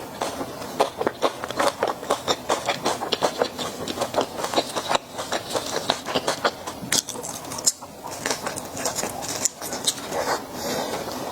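Close-miked chewing of Peking duck: a fast, irregular run of short wet clicks and smacks, several a second.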